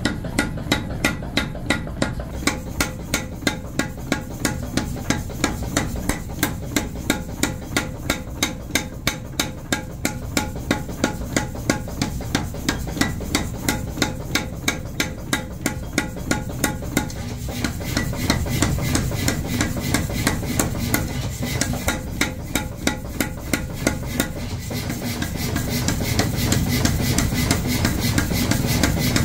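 Mechanical power hammer pounding a red-hot steel bar on its anvil block in rapid, even blows, about three a second. The blows are sharpest in the first half and blur into a low rumble near the end.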